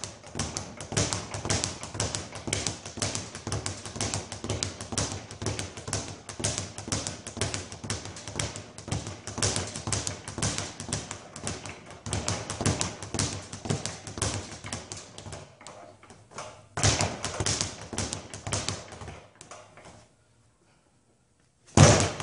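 Speed bag being punched in a fast, steady rhythm, the bag rattling off the rebound board; the drumming thins out and stops about two-thirds through, followed by two louder bumps near the end.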